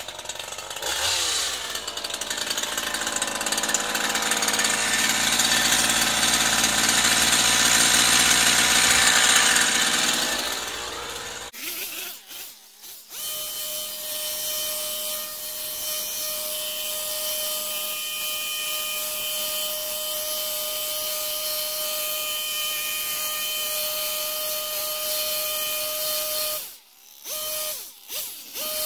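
Stihl HS 46 two-stroke petrol hedge trimmer running at high revs while trimming a hedge. It rises to its loudest over the first ten seconds, breaks off suddenly about eleven seconds in, then goes on as a steadier, slightly quieter whine, with another short break near the end.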